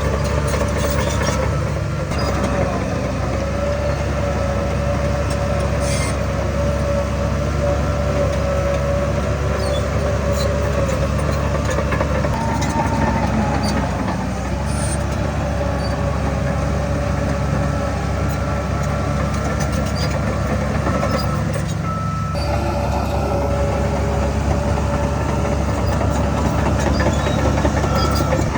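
Heavy diesel earthmoving machinery running steadily under load, a constant engine rumble with a steady whine above it and scattered short clicks and clanks.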